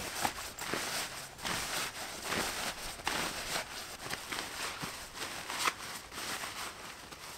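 A tarp's fabric rustling and scrunching as it is bundled and stuffed into its stuff sack, in an irregular run of short rustles.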